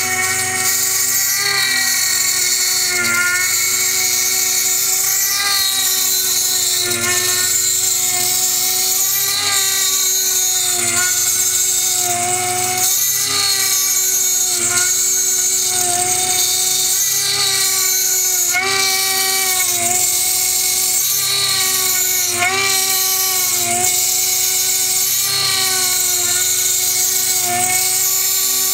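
Milling machine cutting a 7075-T6 aluminium chainring: a steady, high-pitched spindle whine over a hiss of cutting noise, its pitch dipping briefly now and then as the cutter loads up in the cut.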